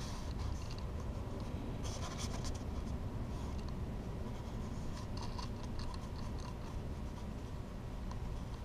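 Light scraping and rustling of hands working wire terminals and nuts onto the winch contactor's studs, in a few short spells over a steady low background hum.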